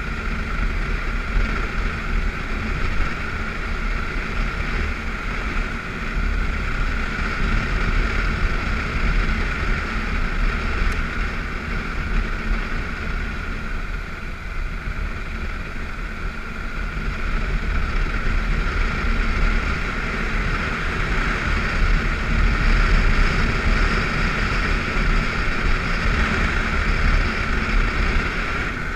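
BMW F650GS motorcycle riding steadily along a gravel road, its engine running under a steady rush of wind and tyre noise, getting somewhat louder in the last several seconds.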